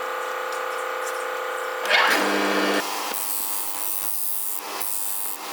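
An electric power tool running steadily, working on the knife. About two seconds in there is a louder, rougher burst of under a second, and after it a hissing, scraping sound of abrasion.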